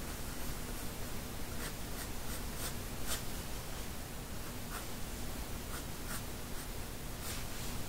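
Prismacolor pencil stroking across paper as a sketch is shaded: short, high scratching strokes in quick bunches, with a pause of about a second near the middle, over a steady faint hiss.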